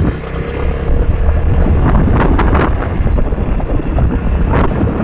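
Wind buffeting the microphone on a moving motorcycle, over the low rumble of its engine and tyres, growing louder about a second in.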